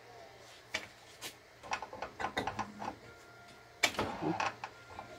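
Clicks, knocks and rattles of hands working on a Ryobi cordless circular saw while its blade screw is being loosened: plastic guard and metal parts handled, a wrench fitted at the spindle. The clicks come in a quick cluster in the middle, and the sharpest, loudest click comes near the end.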